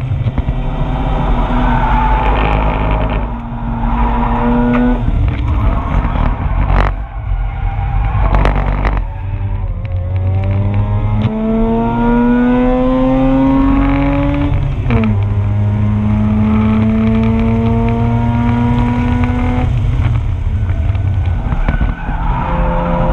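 Mazda RX-8's twin-rotor rotary engine heard from inside the car at speed, its pitch climbing steadily through the revs and dropping suddenly at gear changes, about fifteen and twenty seconds in. Heavy low road and wind rumble lies under it, with rattling from the camera mount.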